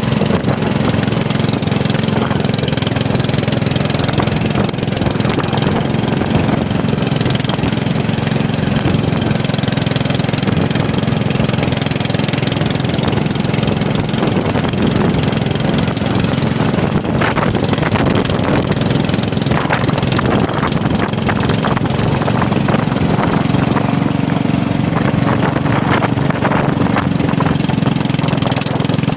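Riding lawn mower engine running steadily under a broad rush of strong wind, with a few brief crackles along the way.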